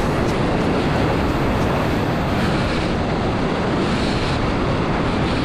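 Whitewater rushing and splashing around a surfboard as it rides a wave, heard from a camera on the board's nose, with wind buffeting the microphone. A dense, steady rush with no letup.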